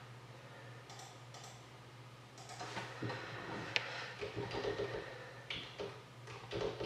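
Light scattered clicks and taps from a computer mouse and keyboard as a randomizer is set up, with one sharper click a little under four seconds in, over a steady low electrical hum.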